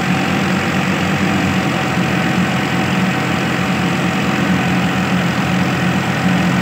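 Tractor's diesel engine running steadily under load, belt-driving a crop thresher as sheaves are fed in, the thresher's drum and pulley running with it.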